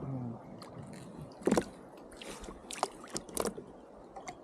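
A few sharp knocks and clacks of gear being handled against a kayak, one single knock followed by a quick cluster of four near the end of the third second, with light water sounds underneath.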